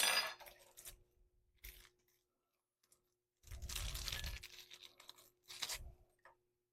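Handling noise of plastic packaging crinkling and rustling as the multi-tool's accessory blades are picked up and sorted, in several short bursts: a sharp one at the start, a longer one of about a second in the middle, and a brief one near the end.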